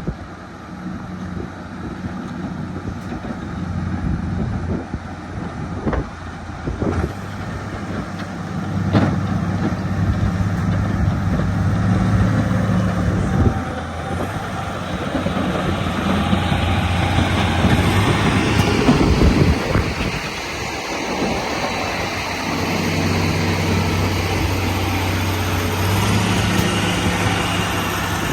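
Heavy construction machine's diesel engine running with a steady low hum, getting louder about a third of the way in. It eases off briefly past the middle, then picks up again, with a few sharp knocks early on.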